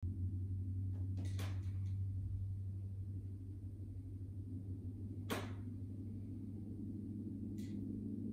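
N scale Union Pacific GTEL 4500 turbine models' sound decoders starting up: a steady low hum, with a few sharp clicks about a second in and a single louder click about five seconds in.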